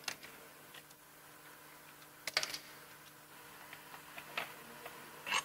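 Scattered light metallic clicks and clinks as hydraulic tightening tools are handled and fitted onto the engine's cylinder-head studs, with a cluster of clicks a little after two seconds. A faint steady hum runs underneath.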